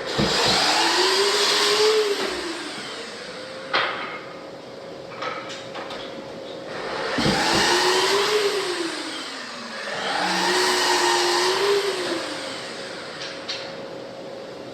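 An electric power tool's motor run in three bursts of two to three seconds, its pitch rising and falling within each burst, with a couple of sharp knocks between them.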